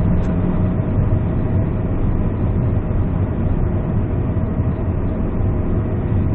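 Steady low drone of a 2008 Peugeot 207CC's 1.6-litre petrol engine and tyre and road noise, heard inside the cabin while the car cruises along the road.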